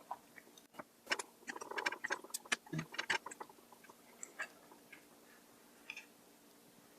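Chopsticks clicking against a bowl and soft sticky sounds as noodles that have stiffened and clumped are worked loose, in a busy run of clicks for a couple of seconds, then a few single clicks.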